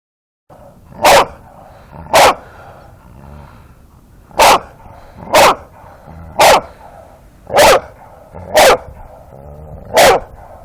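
A dog barking: eight loud single barks, roughly one a second, with a longer pause after the second.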